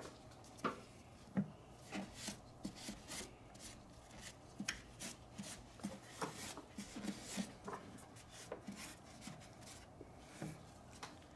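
Gloved hands handling hoses and plastic parts around a car engine's intake manifold: irregular light clicks, knocks and rubbing.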